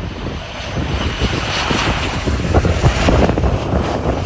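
Airliner's engine noise rising to a peak about midway as the aircraft passes on the runway, over heavy gusting wind on the microphone.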